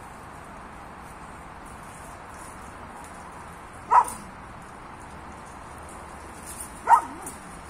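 A dog barking twice, single short barks about three seconds apart.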